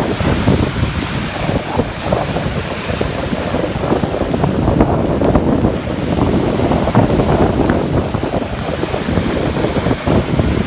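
Caspian Sea waves washing and splashing continuously, with wind rumbling on the microphone.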